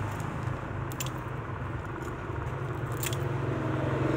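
Two sharp metallic clicks about two seconds apart, from a cutter or pliers working the links of a metal watch bracelet, over a steady low drone.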